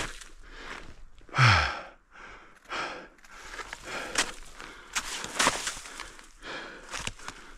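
A hiker's loud sigh, a voiced exhale falling in pitch, about a second and a half in, followed by another breath and the crunch of snowshoe steps in snow.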